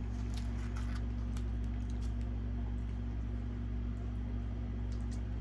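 Faint eating noises, a few small wet clicks and crunches from chewing food, over a steady low electrical hum.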